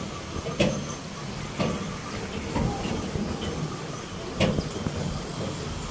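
Bullock cart rolling over a dirt track: a steady rattling rumble from the cart, with a knock or jolt every second or two.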